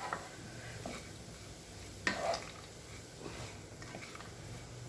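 Spatula stirring soaked poha in a frying pan over faint sizzling, with a few light scrapes and taps of the spatula on the pan, the strongest about two seconds in.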